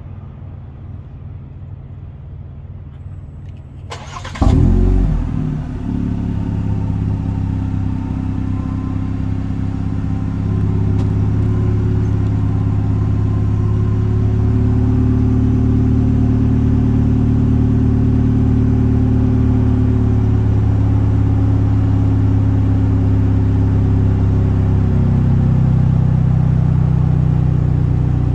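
A Chevrolet Silverado's 2.7 L turbocharged four-cylinder engine, breathing through a Flowmaster 40-series muffler with no resonator and dual exhaust pipes, cranks and catches about four seconds in with a brief rev flare. It then settles into a steady exhaust idle that gets a little louder about ten seconds in.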